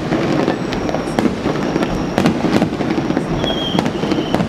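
Fireworks display: aerial shells bursting in a rapid series of sharp bangs and crackles over a steady din, with a brief high whistle about three and a half seconds in.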